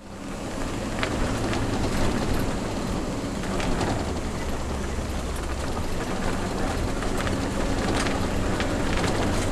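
Road and engine noise heard inside a moving vehicle's cabin: a steady low rumble with a few scattered light clicks.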